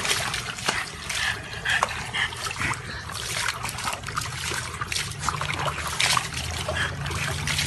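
Water splashing and sloshing in a plastic tub as a small dog sitting in it moves about, slopping water over the rim onto concrete, in irregular splashes.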